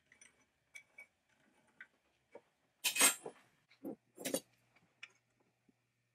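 Small clinks and clicks of metal hand tools and hardware handled on a workbench, with a louder clatter about three seconds in, a duller knock, and another clatter just after four seconds.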